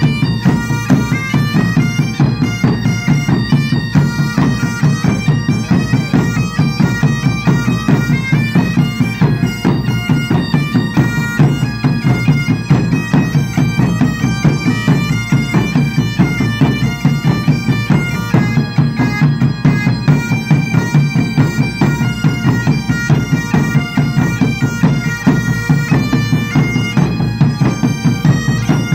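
Two Highland bagpipes playing a tune with drones, over a fast, steady beat on large bass drums and a smaller drum.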